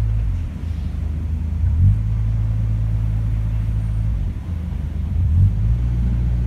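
Narrowboat's diesel engine running with a steady low rumble, its note shifting briefly a couple of times.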